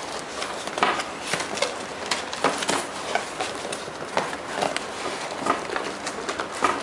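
Product packaging being opened and handled by hand: irregular taps, scrapes and rustles.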